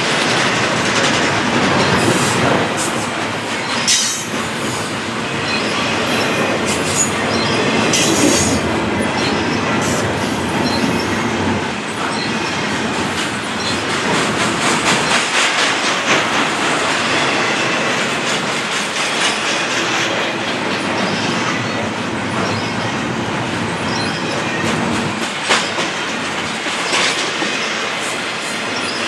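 Intermodal freight cars rolling past steadily, their wheels clicking over rail joints with some wheel squeal.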